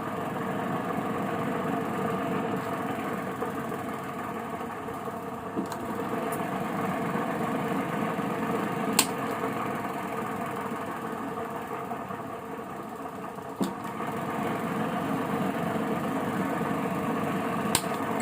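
Centrifugal oil spinner running steadily, its motor and spinning basket giving an even mechanical hum, with a few sharp clicks.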